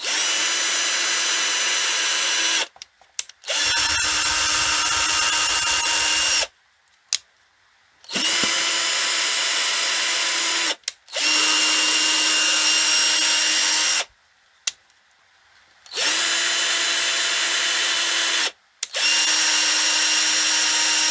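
Electric drill running in six short bursts of about three seconds each, with a steady, even-pitched whine and brief pauses between them. The second burst carries a heavier low rumble, as if under load.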